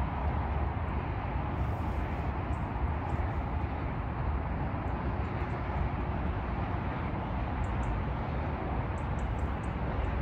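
Steady background noise: a low rumble with a hiss above it and no distinct events.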